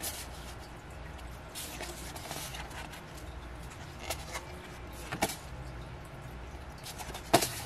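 Paper and plastic album inclusions being handled: brief rustles and light taps, with one sharper click near the end.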